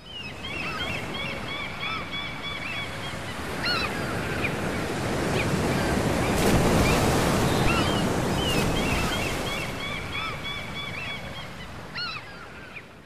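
Sea surf washing in, swelling to its loudest about halfway and easing off again, with seagulls calling over it in runs of short, quick cries near the start and again later.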